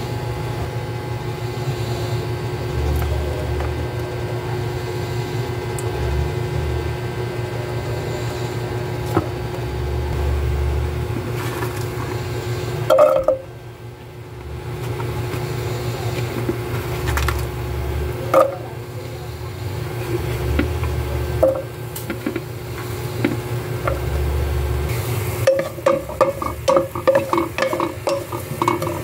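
Chopped onions frying in hot oil in a pan, over a steady low hum. There are a few single knocks, then near the end a wooden spatula stirs the onions with quick, repeated taps against the pan.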